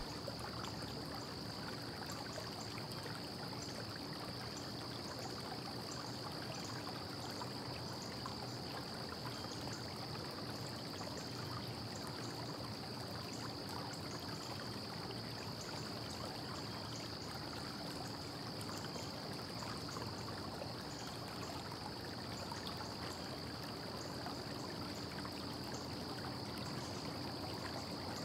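Steady low hiss of background noise with a faint constant high-pitched whine and a light hum underneath; no tool or impact sounds.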